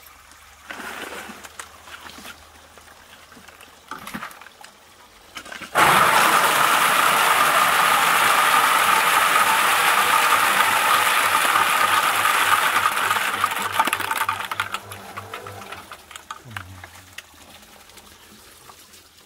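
Peeled walnuts pouring out of the discharge door of a Meltem C-120 walnut peeling machine into a plastic crate. The dense rushing clatter starts suddenly about six seconds in, lasts about eight seconds, then dies away. The machine's electric motor hums low underneath.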